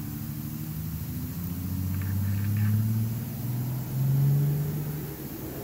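A vehicle engine running, its pitch drifting up and down, loudest about three and four seconds in.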